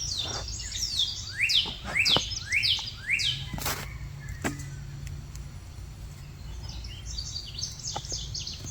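A songbird singing runs of quick down-slurred chirps, several in a row through the first few seconds and again near the end, over a low steady outdoor rumble, with a few faint knocks.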